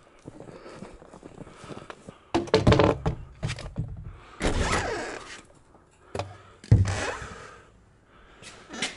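Several heavy thumps and knocks and a longer scrape as a pipe is handled and a door is pushed open, with quieter shuffling between them.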